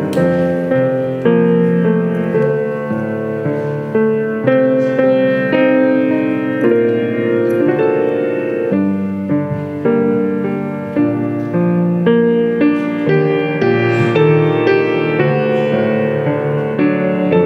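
Piano-style keyboard playing slow church music, chords under a melody, with no singing.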